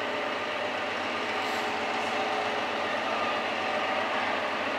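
Narrow-gauge diesel locomotive idling at the platform: a steady engine hum with a hiss over it.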